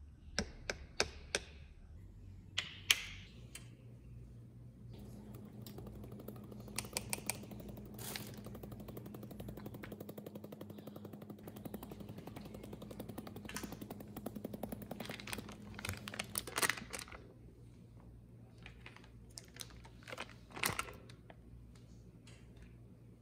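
Stainless steel mesh sieve being tapped and shaken to sift flour into a glass bowl: a few sharp clicks at first, then a long run of rapid rattling ticks that stops about three-quarters of the way through, followed by a couple of louder knocks.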